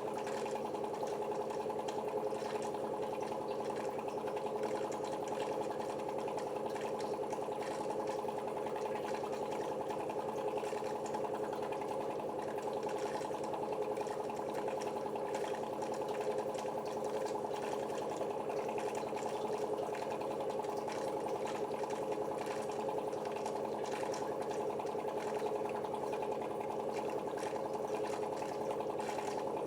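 KENT reverse-osmosis water purifier running: its pump motor hums steadily in a constant drone while water is pushed through the filters.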